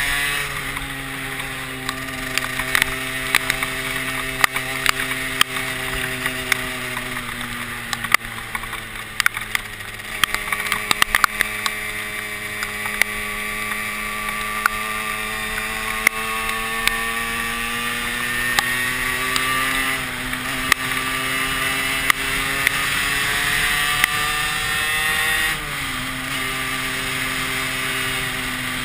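Derbi Senda motorcycle engine running at cruising speed under a rider-mounted camera. The engine note sags slowly and climbs back, then drops sharply about 25 seconds in. Scattered sharp ticks sound over it, with wind rush behind.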